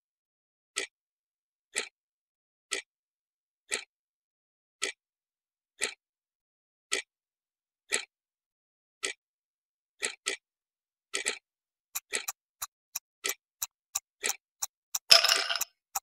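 Countdown clock ticking sound effect that marks the answer time. It ticks about once a second, then quickens to about three ticks a second after about twelve seconds as the time runs out. A louder, noisier burst comes in near the end.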